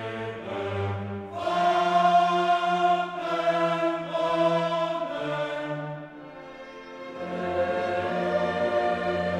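Choral music with orchestra: a choir singing long held chords, dipping quieter for a moment about two-thirds of the way through.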